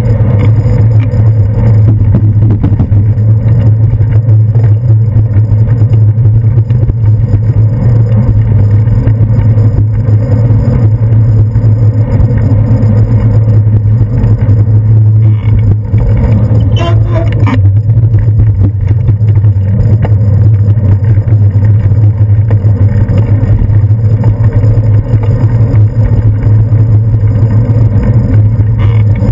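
Loud, steady low rumble of road vibration and wind picked up by a handlebar-mounted GoPro Hero 2 in its housing while a bicycle is ridden along a street. A brief knock comes a little past halfway through.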